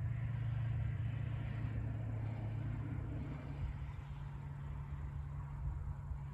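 A steady low machine hum, easing slightly about halfway through.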